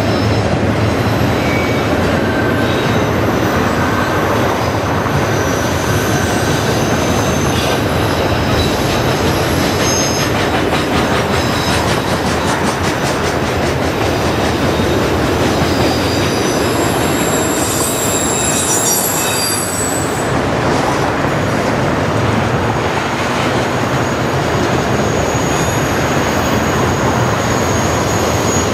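Autorack cars of a CSX freight train rolling past: a loud, steady rumble and rattle of steel wheels on rail, with high wheel squeals coming and going and a spell of rhythmic clicking over rail joints midway.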